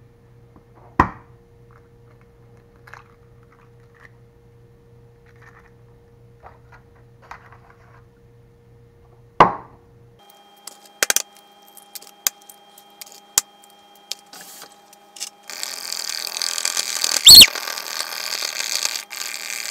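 Eggs being cracked: two sharp knocks several seconds apart, then lighter clicks. In the last few seconds a fork whisks raw eggs in a plastic bowl, a fast, continuous scraping rattle with one loud clack partway through.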